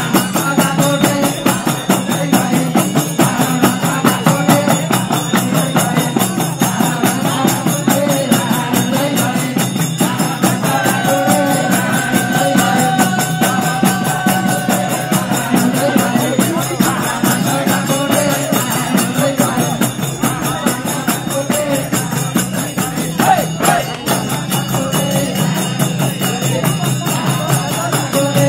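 Live Nepali bhajan music played and sung by a seated group, with a steady driving rhythm and jingling percussion.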